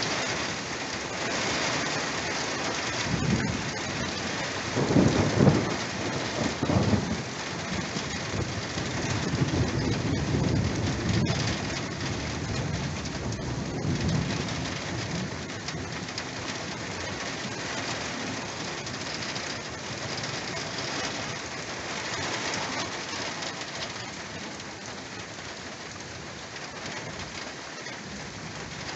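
Steady rain falling, with thunder rumbling through the first half; the rumble is loudest about five seconds in and dies away by the middle.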